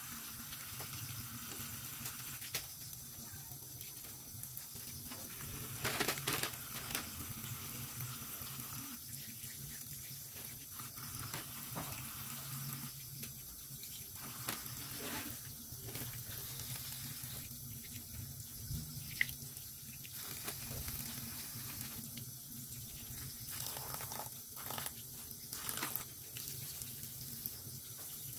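Water running from a tap into a sink while fish and shrimp are cleaned under it, with scattered short knocks and clatter from the handling.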